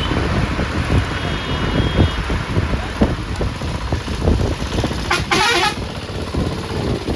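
A bus on the move, heard from inside: steady engine and road rumble with frequent knocks and rattles, and a short burst of sound lasting under a second about five seconds in.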